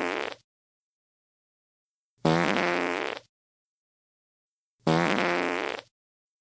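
Fart sound effect played on a loop: the same pitched fart, about a second long, repeats about every two and a half seconds with dead silence between. The tail of one ends just after the start, and two more follow in full.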